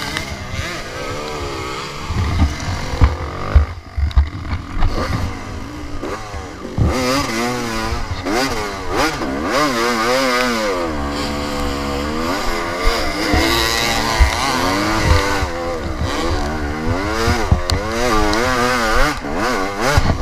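Dirt bike engine revving hard, its pitch repeatedly rising and falling as the rider races over rough dirt, with scattered knocks and thumps from the bumps. The bike's shifter is stuck in fourth gear, so the revs swing up and down without any gear changes.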